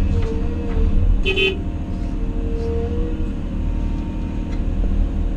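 Cat 336F excavator's diesel engine running steadily under hydraulic load as the bucket dumps dirt into a hauler, heard from inside the cab; a short horn toot sounds about a second in.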